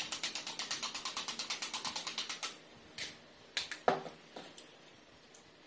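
Fork beating eggs in a small plastic bowl: fast, even clicking at about eight strokes a second that stops about two and a half seconds in, followed by a few separate clicks and knocks.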